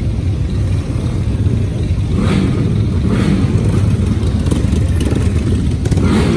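Many classic and café-racer motorcycle engines idling together, with single bikes revving as they pull away and ride past one after another: swells about two seconds in, again about a second later, and near the end.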